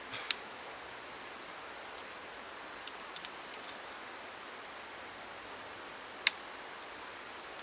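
Small sticks being handled and broken for fire-making: a few sharp snaps and clicks, the loudest a little past six seconds in, over a steady background hiss.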